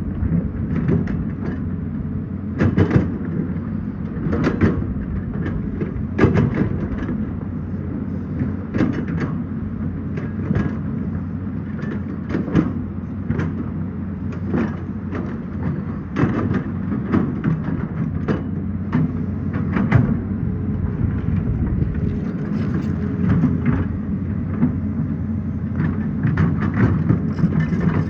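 Hydraulic excavator's diesel engine running steadily, with frequent sharp clanks and knocks every second or two as it works.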